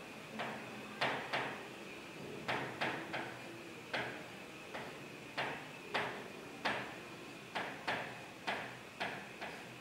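Marker pen writing on a board: a string of short scratchy strokes, about two a second at uneven spacing, each fading quickly, as a line of handwriting is put down.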